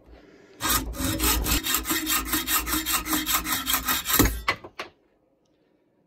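Hacksaw cutting through a threaded rod held in a bench vise, with fast back-and-forth strokes, several a second. The sawing starts about half a second in and stops after about four seconds.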